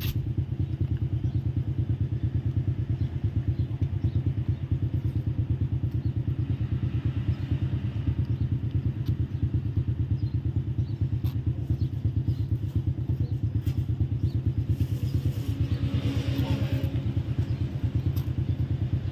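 A small engine running steadily with a fast, even putter.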